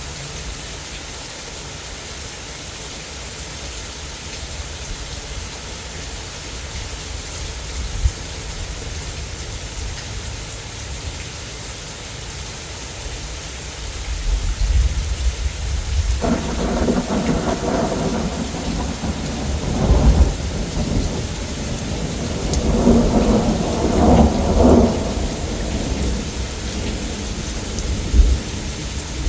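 Steady heavy rain, with thunder rumbling in about halfway through and rolling on in several swells to the end.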